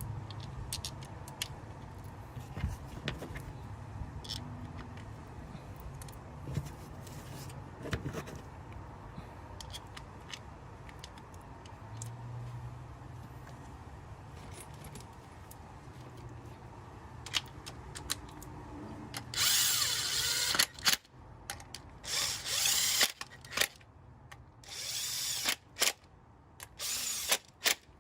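Cordless power driver running in four short bursts in the second half, spinning in the 10 mm ignition-coil hold-down bolts. Before that come scattered light clicks and knocks of tool handling.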